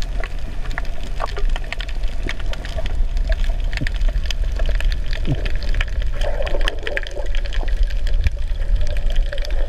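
Underwater sound of a reef picked up through a camera housing: a steady, muffled water rumble with many short crackles and clicks scattered through it.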